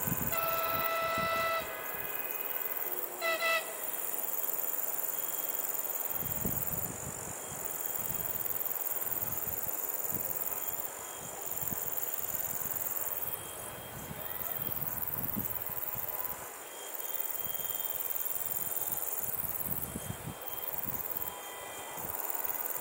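Distant diesel multiple unit sounding its horn as it departs: one long blast of just over a second, then a short one about two seconds later. Steady high insect chirring and wind rumble on the microphone go on throughout.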